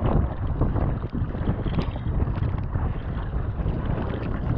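Wind buffeting the microphone over the splashing of a sea kayak's paddle strokes and choppy sea slapping against the hull.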